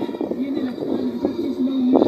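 Indistinct voices of several people outdoors, in short broken fragments over a noisy background.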